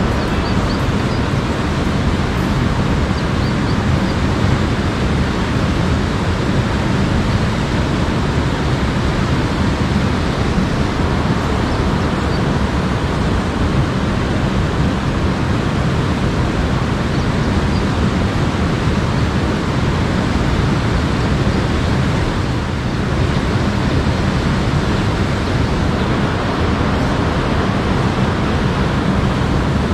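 Steady rushing of flowing river water, a loud, even noise with no breaks.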